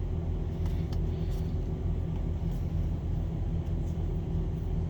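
Steady low rumble of an idling vehicle engine, heard from inside the cab, with a few faint ticks over it.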